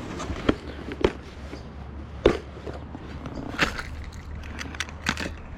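Irregular sharp knocks and clicks, about five of them a second or so apart, over a steady low rumble.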